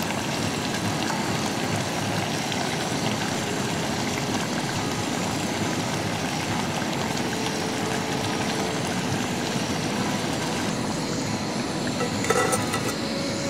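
Gas camping stove burner rushing steadily under a pot of curry. Near the end a metal lid clatters briefly onto the pot.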